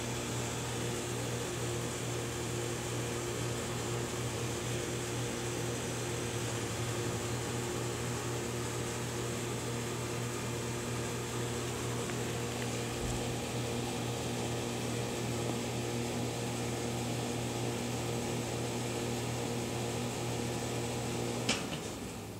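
Steady hum of an electric motor-driven machine with a low buzz. It cuts off with a click near the end.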